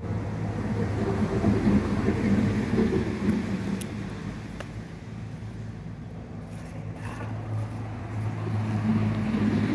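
A motor engine running steadily nearby with a low hum, louder over the first few seconds, fading somewhat in the middle and swelling again near the end. Two faint clicks come a little under a second apart about four seconds in.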